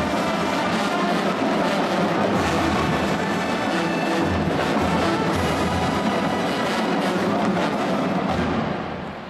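Marching band playing brass and drums, fading out near the end.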